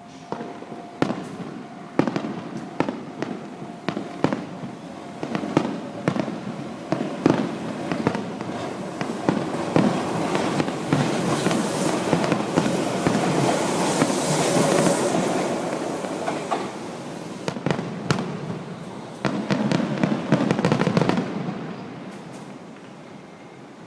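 Fireworks display: aerial shells bursting one after another in sharp bangs. About nine seconds in they thicken into a dense, continuous crackling barrage, then a second flurry of rapid bangs comes near the end before the sound dies down.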